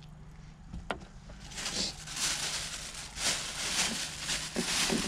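Thin plastic shopping bag rustling and crinkling as it is handled and opened, starting about a second and a half in.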